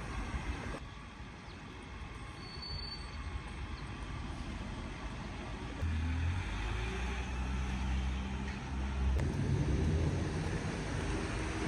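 City street traffic: vehicle engines running with a low hum that grows louder about halfway through as a heavier vehicle comes close.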